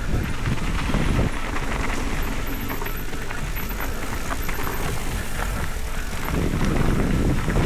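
Mountain bike rolling over rough ground, with a steady low rumble of tyres and many small rattles and clicks from the bike, plus wind on the microphone.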